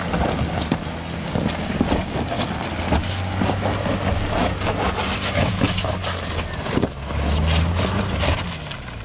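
Land Rover Defender's engine running under load as it crawls up a rocky slope, with stones crunching and knocking under the tyres. The engine note swells briefly near the end.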